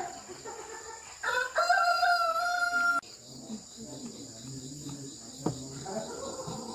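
A rooster crows once: a drawn-out, slightly falling call that stops abruptly about three seconds in. A steady high insect drone runs under it.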